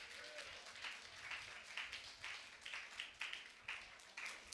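Faint rhythmic hand clapping, about two claps a second.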